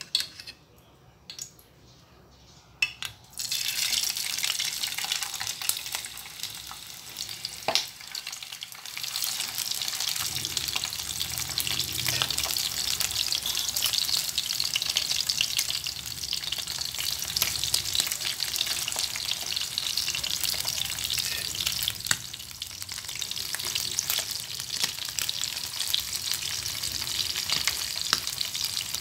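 Dried salted fish (daing) frying in a pan of hot oil: a loud, steady sizzle and crackle that starts suddenly a few seconds in, when the fish go into the oil. Before that come only a few light clicks.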